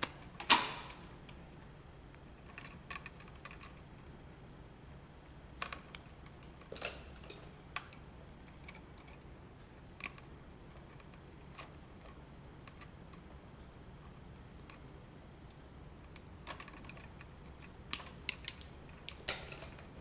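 Sparse sharp clicks and snips of hand tools on white neutral wires being cut to length and stripped for a splice. The loudest snip comes about half a second in, single clicks follow every few seconds, and a quick run of clicks comes near the end.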